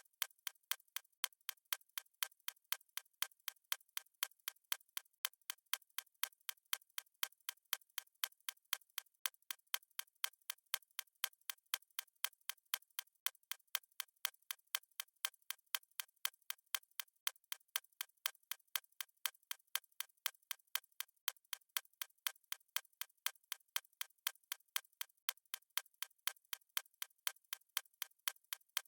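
Countdown timer's clock-tick sound effect: an even, unbroken run of sharp, thin ticks, alternating louder and softer like a tick-tock.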